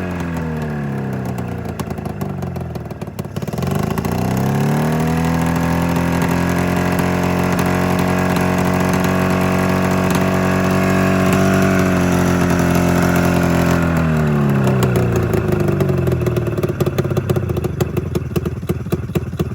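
Two-stroke snowmobile engine running and being revved: it drops, climbs and holds high for several seconds, then falls back to a rough, uneven idle near the end. It is misfiring, firing on only one of its two cylinders.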